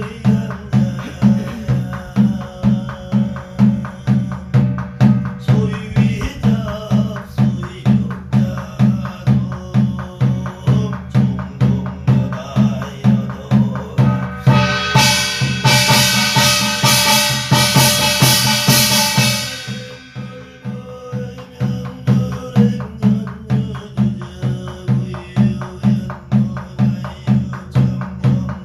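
Korean seated sutra chanting (gyeong-ilgi): a standing barrel drum (buk) struck in a steady beat of roughly two strokes a second, under a man's chanting voice. For about five seconds in the middle a bright, continuous metallic ringing from the small brass gong rises over the drum and then stops.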